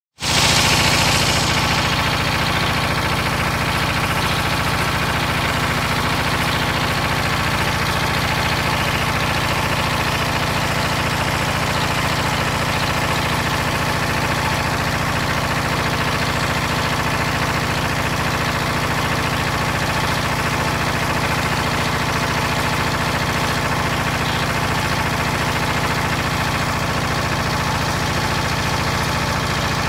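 Diesel engine of a Davey H-1 400,000 BTU aircraft ground support heater running at a steady speed. It runs smoothly here, free of the stalling and hunting its faulty fuel injection system usually causes, with a slightly louder hiss for the first second or two before it settles.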